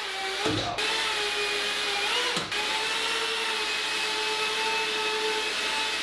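Electric ducted fans of a tiny RC hovercraft whining steadily as it drives across the floor, the pitch dipping and rising briefly twice in the first few seconds as the throttle changes.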